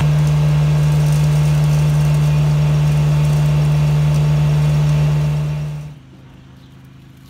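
Engine-driven equipment on a trenchless sewer-pipe replacement job running loud and steady at an even pitch, stopping suddenly about six seconds in and leaving only a faint background.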